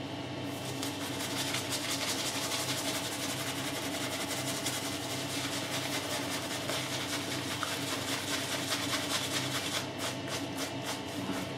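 Badger-hair shaving brush working shaving cream into a lather over three days' stubble: a rapid, scratchy brushing that breaks into separate strokes near the end. A steady low hum underneath.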